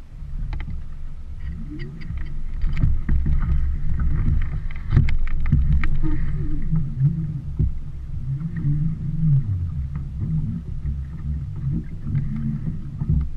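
Small sailboat under way: water rushing along the hull with a steady low rumble, and a run of sharp clicks and splashes between about one and six seconds in.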